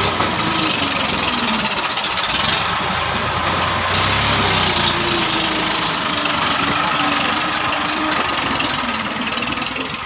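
Diesel farm machinery running steadily at close range: a tractor beside a working corn harvester. One engine note dips slowly in pitch midway, and the overall level eases off slightly near the end.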